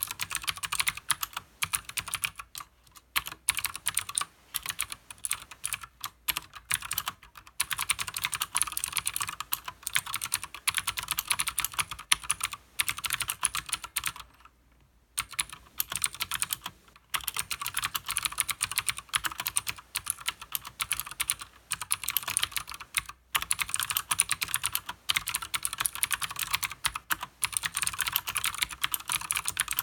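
Fast continuous typing on a Leopold FC900R mechanical keyboard with Cherry MX Blue clicky switches and PBT keycaps: dense clicking keystrokes with short pauses, the longest about halfway through.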